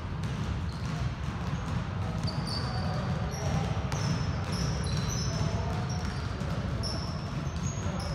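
Many basketballs being dribbled at once on a hardwood gym floor: a dense, continuous patter of overlapping bounces. Short high sneaker squeaks come now and then as players move.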